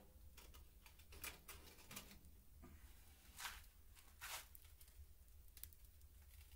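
Faint scrapes and rustles of long steel tongs working in a coal stove's firebox to pull out a clinker, several short scrapes a second or so apart, over a low steady hum.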